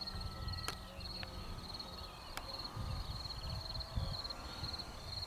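Field insects chirping in a steady, high-pitched pulsing trill, with wind rumbling on the microphone underneath.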